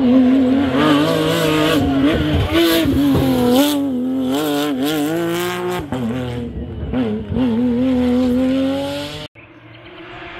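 Rally car engine at full stage pace. Its note rises and falls sharply again and again with throttle and gear changes, then climbs steadily in one long pull. About nine seconds in it cuts off abruptly to a much quieter, steadier engine sound.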